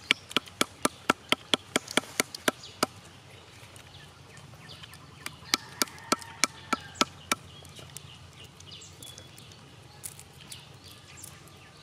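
Quick, sharp taps of a bamboo tube striking cashew nuts to crack their shells: a run of about four taps a second for the first three seconds, a second run a few seconds later, then a few fainter clicks near the end.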